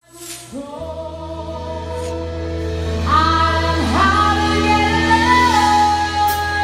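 Music with singing: held vocal notes over a steady low bass note, fading in at the start and sliding to new pitches about three and four seconds in, with a first percussion hit near the end.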